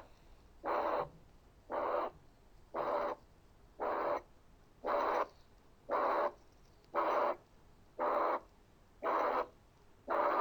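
Recorded heart auscultation through a stethoscope diaphragm at the left parasternal border: a ventricular septal defect (VSD) murmur. It is a harsh noisy murmur filling systole, repeating about once a second with each heartbeat.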